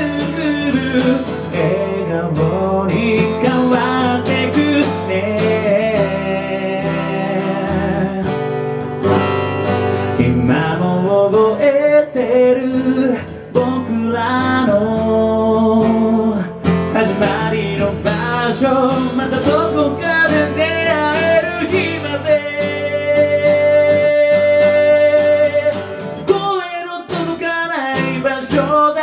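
A man singing a song to his own strummed acoustic guitar, with one long held note near the end.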